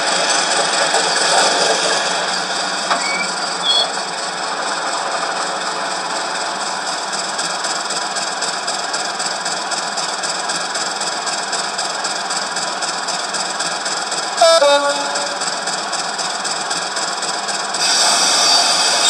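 Model train running on a layout: a steady diesel engine sound with running noise, and a brief falling tone about 14 seconds in.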